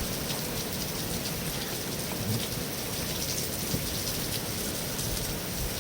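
Steady rain falling, pattering on a metal roof.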